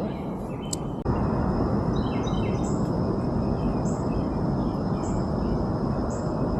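Outdoor river ambience: a steady low noise of moving water and air, with birds chirping. One bird repeats a short high call about once a second over a thin steady high tone.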